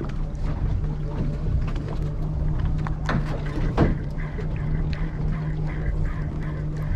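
Boat engine running at a steady idle, with two sharp knocks a little under a second apart midway through.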